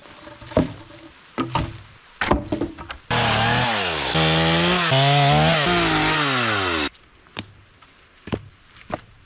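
Two-stroke gas chainsaw running at full throttle and bucking a pine log for nearly four seconds. Its engine pitch sags under the load of the cut and recovers, and the sound cuts off suddenly. Before and after, there are scattered knocks of wood being handled.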